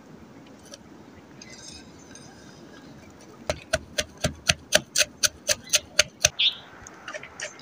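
Wooden pestle pounding chopped onion in a wooden mortar: quick, even knocks, about four a second, starting about three and a half seconds in and pausing briefly near the end.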